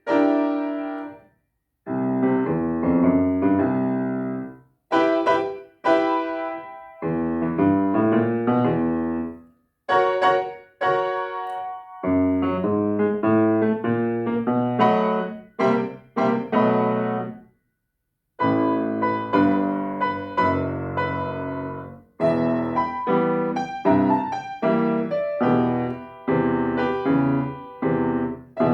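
Solo piano playing a slow blues piece: chords and melody notes in short phrases, each phrase dying away into a brief silence before the next begins.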